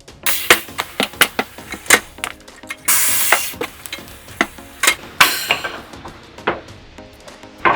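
Tyre being dismounted from a wheel rim: a run of sharp metal clanks and knocks, with a short hiss about three seconds in and a lesser one about five seconds in.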